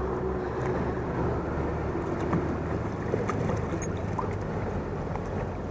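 Steady low wind noise on the microphone, with a few faint splashes from a hooked smallmouth bass splashing at the water's surface.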